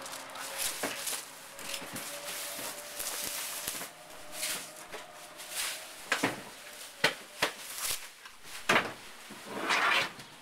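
Scattered knocks and scuffs, louder and sharper in the second half, from people working around a stacked pallet of cartons inside a steel shipping container, with a longer rustle near the end.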